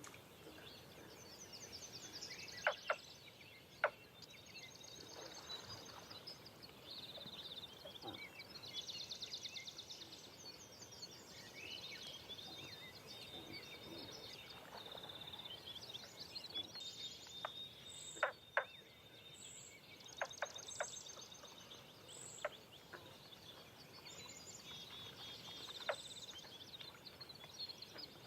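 Several songbirds singing over one another, with repeated trills and warbles, as in a dawn chorus. A handful of sharp clicks or knocks cut through, the loudest sounds, a pair near the start and several in the second half.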